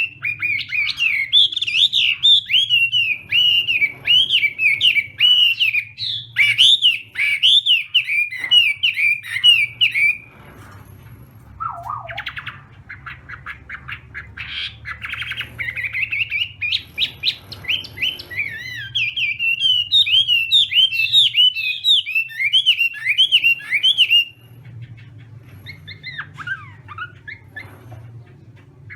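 Chinese hwamei singing: long, loud phrases of rapid whistled notes that swoop up and down, with a break of a few seconds in the middle filled by softer calls. A steady low hum runs underneath.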